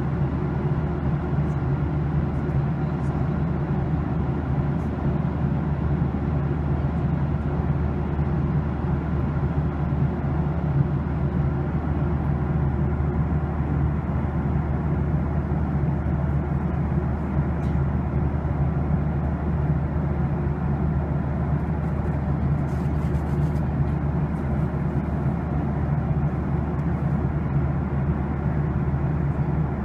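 Steady cabin noise of a Boeing 737-800 jetliner in cruise, heard from inside the cabin: an even low rush of airflow and engines that does not change.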